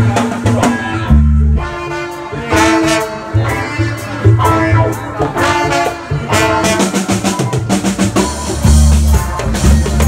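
Live reggae band playing, with brass including a trombone carrying sustained melody notes over bass guitar and drum kit. The cymbals get busier in the second half.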